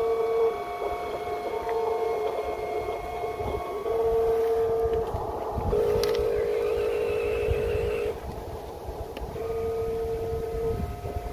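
Electric motors of radio-controlled construction trucks whining in on-and-off bursts of about a second each, with one longer buzzing stretch of about two seconds in the middle, over a low rumble.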